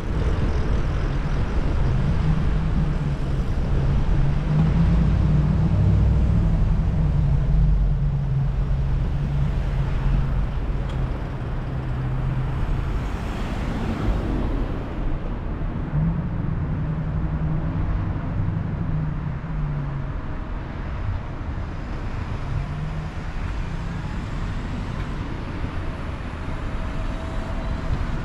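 Road traffic: motor vehicle engines running close by with a low hum, and one brief swell of noise about halfway through.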